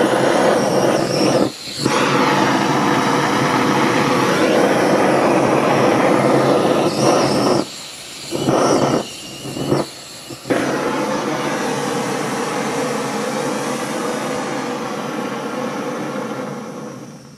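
Handheld gas torch flame running with a steady hiss, dropping out briefly a few times and fading away near the end.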